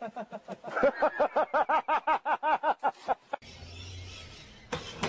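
A person's voice crying out in rapid, evenly repeated yelps, about three or four a second, for about three seconds. It stops suddenly and gives way to a steady low hum.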